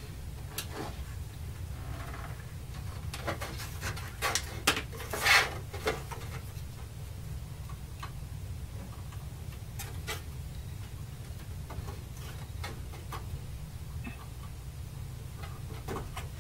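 Scattered clicks, taps and knocks of hands handling the keyboard cable and its connector inside a TRS-80 Model III's metal chassis while plugging it into the CPU board. The loudest cluster comes about four to six seconds in, over a steady low hum.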